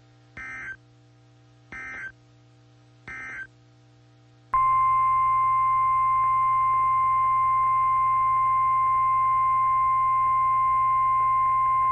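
Emergency Alert System broadcast on NOAA Weather Radio: three brief warbling SAME digital data bursts, then about four and a half seconds in the loud, steady single-pitch warning alarm tone starts and holds. The alarm tone signals that a new warning, here a tornado warning, is about to be read.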